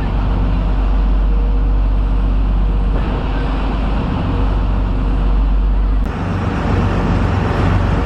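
Fishing boat's engine running steadily under way, a low drone under the rush of the churning wake. The sound changes abruptly about six seconds in.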